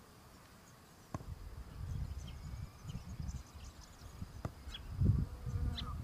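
An insect buzzing close by in an uneven, fluttering drone, with faint, short, high bird chirps scattered over it.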